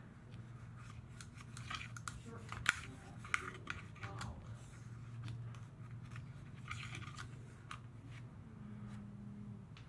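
A cleaning rod with a patch pushed and pulled through the magazine well of a Sig Sauer P220's steel frame, giving irregular scraping strokes and light clicks over a low steady hum.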